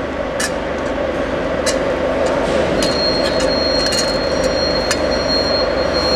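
Steady mechanical background noise that grows slowly louder, with scattered light clicks and a thin high whine that starts about three seconds in.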